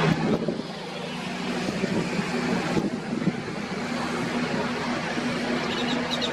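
A steady engine drone with a low hum, over wind noise on the microphone.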